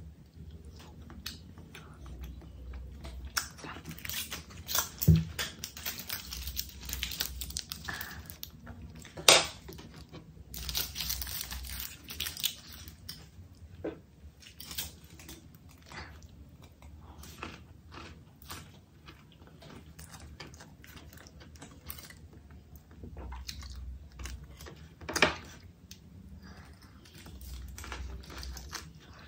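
Close-miked eating of seafood paella: chewing and bites with many small wet clicks, and three louder sharp clicks among them.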